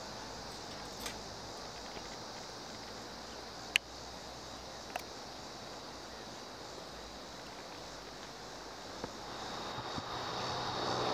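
Quiet outdoor ambience: a steady high hiss with a few sharp clicks, the loudest about four seconds in, and a louder rustle building near the end.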